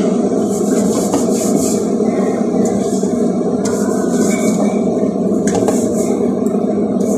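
Fingers rubbing and smearing an oil-and-flour coating around the inside of a non-stick springform cake pan, with short scratchy rubbing strokes coming and going. A steady, loud background noise runs underneath.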